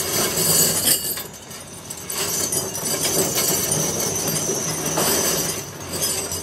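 Workshop din of metalworking machinery running, with a steady hum and occasional metal clatter.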